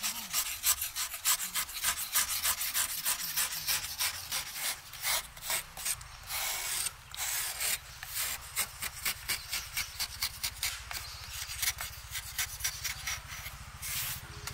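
Metal hand tool scraping and carving the round hollow of a soft quarried clay stove block, in quick, irregular scraping strokes.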